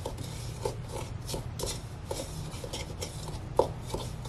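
Spatula stirring and scraping a damp, crumbly paste of ground cheese balls and water around a mini food-processor bowl, in short repeated strokes about three a second.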